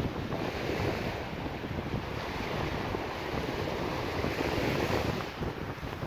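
Small sea waves washing onto the beach in two swells, with wind rumbling on the phone's microphone.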